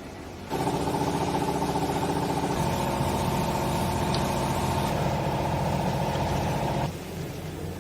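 Hydraulic baler's pump motor running loud and steady under load. It starts abruptly about half a second in, its tone shifts partway through, and it cuts off near the end. A lower steady hum runs underneath throughout.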